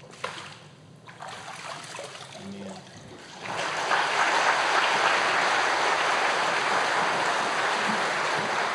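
Water sloshing in a church baptistry as a girl is immersed, then from about three and a half seconds in a congregation applauding steadily.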